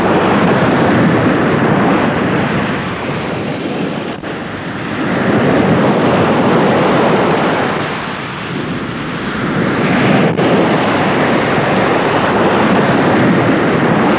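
Sea surf: a steady rush of waves that swells and eases a few times.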